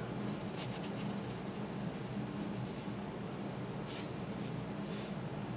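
Paintbrush stroking and dabbing oil paint across a canvas panel: a run of light brushing strokes, one louder stroke about four seconds in, over a steady low hum.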